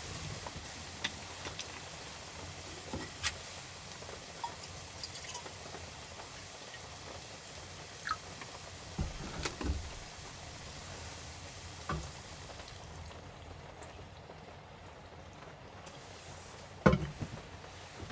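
Steady rain hissing and pattering on a light truck camper, with scattered light knocks and clicks. A louder knock comes near the end.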